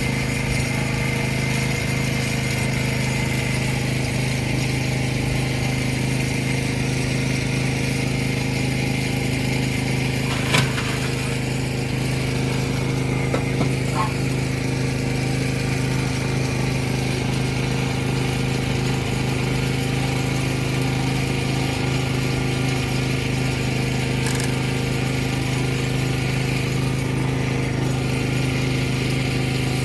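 A steady hum from an engine or motor running at constant speed, unchanging in pitch. Two sharp clicks come partway through.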